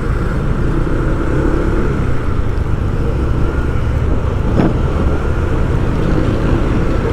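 Vehicle engine running steadily with road noise while driving.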